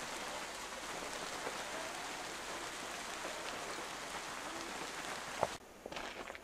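Steady rain falling on leaves and grass. It stops abruptly with a single sharp knock about five and a half seconds in, leaving a quieter background with a few scattered water drips.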